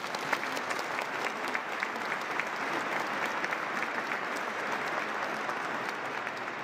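A large congregation applauding in a cathedral nave: steady, dense clapping from many hands.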